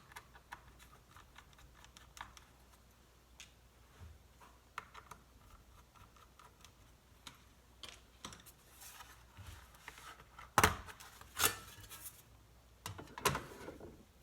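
Small clicks and taps of hand-tool work on a MacBook Pro: the pentalobe screwdriver and screws working on the laptop's bottom case. A few louder knocks and scrapes come about ten to thirteen seconds in.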